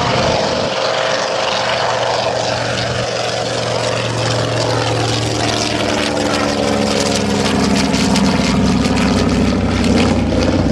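Grumman TBM-3E Avenger's Wright R-2600 twin-row radial engine and propeller droning as the aircraft flies past, the engine's pitch sliding down through the middle of the pass and the sound growing a little louder near the end.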